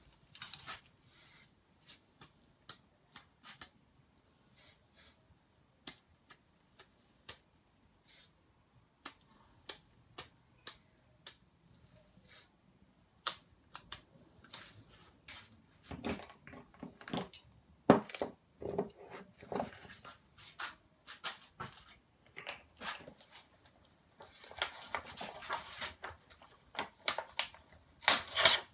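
Aerosol spray paint cans spraying in short bursts, with many irregular clicks and taps from cans and tools being picked up and set down in between. The loudest burst of spray comes near the end.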